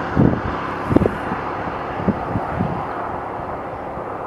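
Wind rumbling on the microphone, with several low thumps from gusts in the first three seconds.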